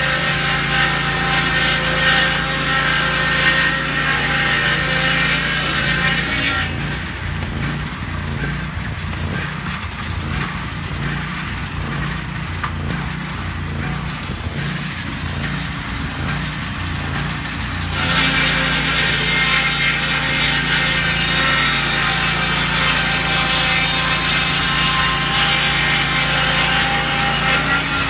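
Lucas Mill portable swing-blade sawmill's engine running and its circular blade sawing through a log. About six seconds in the high sawing noise stops abruptly, leaving a lower engine sound, and the full sawing sound returns just as abruptly some eleven seconds later.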